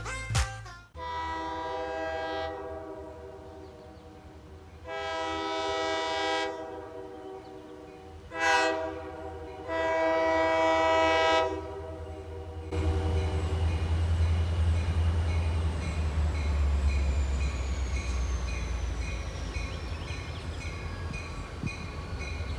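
Train horn sounding four blasts, long, long, short, long, the standard grade-crossing signal, as the scenic railroad train approaches the station. After the horn, the train's low rumble takes over as it pulls in, with a faint high whine slowly falling in pitch.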